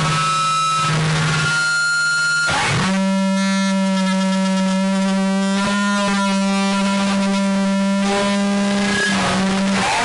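Creepy droning sound effect: a loud, continuous tone with many overtones that holds one low pitch, then steps up a little under three seconds in and holds again, its upper tones wavering.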